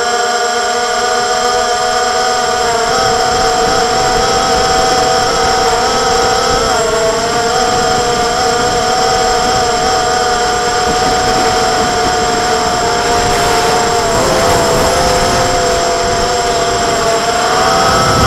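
Hexacopter's six electric motors and propellers whining steadily in flight, heard from on board, with wind noise underneath. The pitch dips briefly twice, about seven and fourteen seconds in, and rises near the end as the throttle changes.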